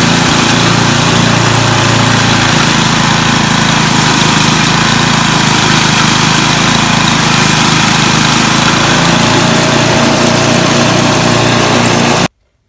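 Two-stage snowblower's small gas engine running steadily under load, its auger and impeller churning through a snowbank and blowing a high stream of heavy snow out of the chute without clogging. The noise cuts off suddenly near the end.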